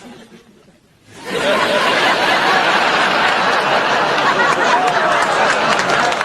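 Studio audience laughing, swelling in about a second in and holding loud and steady.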